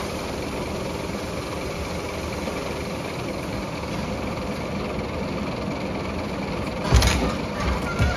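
Refuse collection truck's engine running steadily while its hydraulic crane lifts a waste container. A loud knock about seven seconds in, and a smaller one near the end.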